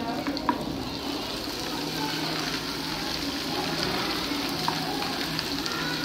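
A homemade model vacuum cleaner's electric motor and fan running steadily, a continuous hiss of rushing air over a faint low hum, with a sharp click about half a second in.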